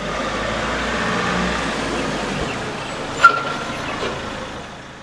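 A motor vehicle running with a steady noise that fades in and later fades out. A sharp click with a short high beep about three seconds in.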